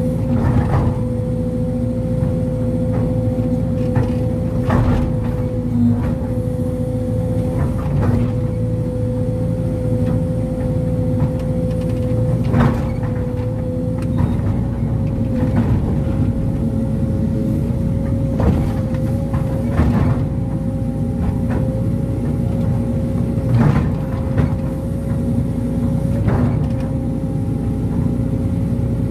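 Sumitomo SH210 hydraulic excavator running under load, heard from the operator's cab: a steady diesel engine note with a constant whine over it, broken by frequent short knocks and clunks as the bucket digs and scrapes the soil.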